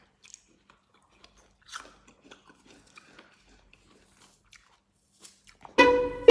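Faint crunching and chewing of crisp raw apple slices being bitten and eaten. Near the end, louder string music with plucked and bowed notes starts.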